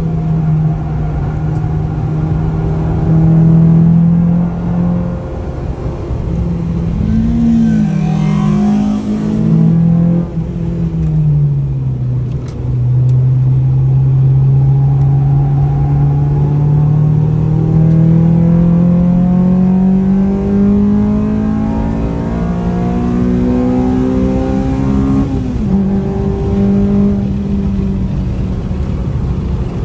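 Honda Civic's four-cylinder engine heard from inside the cabin while lapping a race track. Its note falls about ten seconds in, then climbs steadily under full throttle for about twelve seconds before dropping sharply at a gear change near the end.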